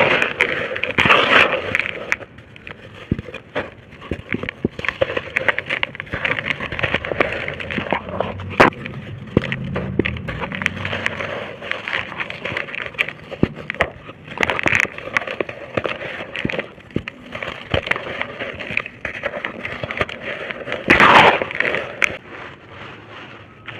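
Dry red brick-dirt shapes being crushed and crumbling, giving dense crackling crunches and sharp snaps. There are louder bursts of crunching just after the start, about two-thirds of the way through and again near the end.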